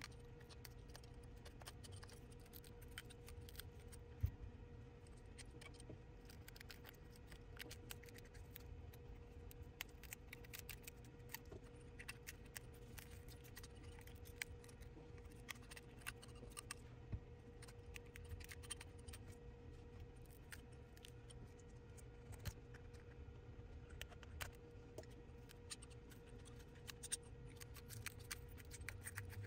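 Metal scraper blade chipping broken back-glass fragments off an iPhone 12 Pro Max: faint, irregular scrapes and small clicks that come and go throughout. A faint steady hum runs underneath.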